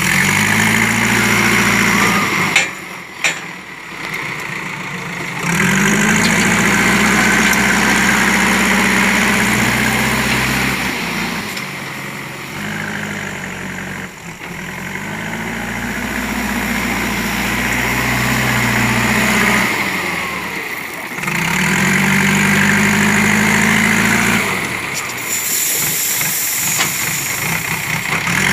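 Diesel engine of a JCB backhoe loader revving up in repeated spells of several seconds and dropping back between them as it works the loader bucket. Two sharp knocks about three seconds in, and a hiss of crushed stone pouring from the bucket into a truck bed near the end.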